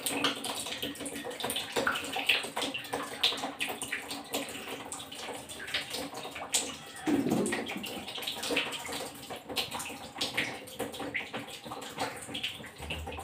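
Water running and splashing steadily from the outlet pipe of an electric geyser (water heater), now flowing freely after the pipe has been cleared of dirt, with a brief louder low sound about seven seconds in.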